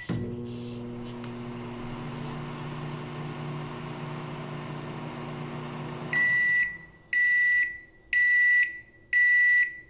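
Microwave oven running with a steady hum, then shutting off about six seconds in and giving four beeps about a second apart, signalling the end of the cooking cycle.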